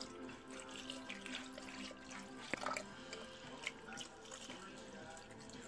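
Juice pouring in a thin stream into a plastic Ninja blender jar full of fruit, a faint trickling splash, with a sharp knock about two and a half seconds in.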